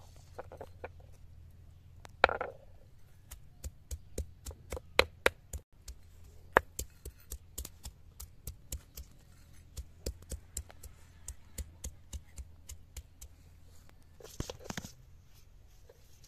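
Round hand stone knocking down on chopped onions on a wet flat grinding stone, crushing them: a run of sharp irregular knocks, about three a second, with a short rough scrape near the end.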